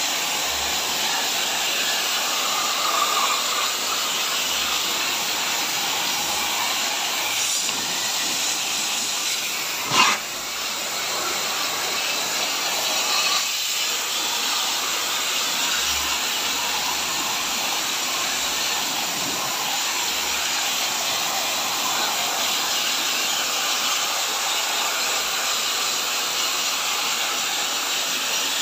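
Steady hiss of a high-pressure water jet from a Mollar HPW500 electric pressure washer, fired through a fine spray nozzle onto the aluminium fins of an air-conditioner evaporator coil to clean it. One sharp click about ten seconds in.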